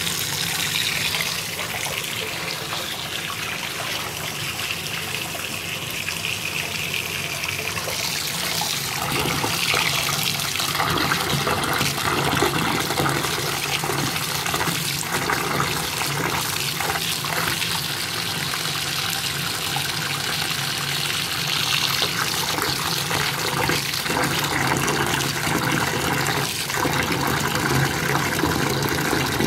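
Bathtub tap running into a filling tub, a steady rush of water, with a hand swishing and splashing in the water now and then from about a third of the way in.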